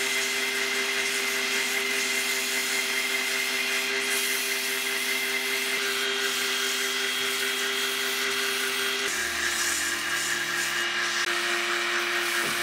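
Electric wood lathe running at steady speed with sandpaper held against the spinning wooden spindle: a steady motor hum under a sanding hiss. The hum shifts to a different pitch about nine seconds in.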